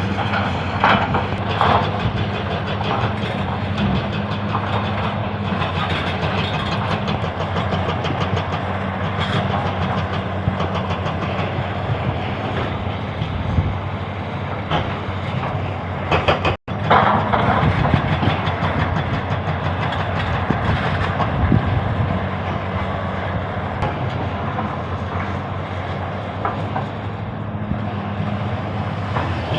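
Hyundai excavator's diesel engine running steadily while working, with scattered metallic knocks and rattles. The sound cuts out for an instant a little past halfway.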